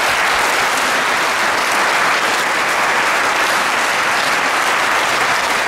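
Audience applauding steadily, a dense round of clapping.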